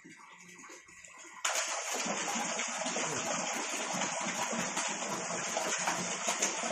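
Water suddenly starts gushing and splashing about a second and a half in, then keeps pouring steadily: an SP-108 pond pump has just been switched on and is lifting water up a 3-metre pipe, with the outflow splashing down.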